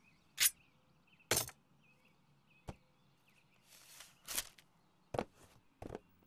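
A knife slitting the paper seal on a brocade-covered wooden box and the lid being lifted: a handful of brief scrapes, taps and rustles, with a longer scrape about four seconds in.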